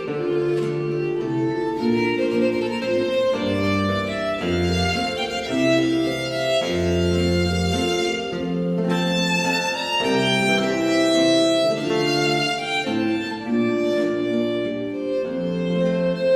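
Instrumental background music on bowed strings, with a violin line over lower held notes; slow, long sustained notes changing about once a second.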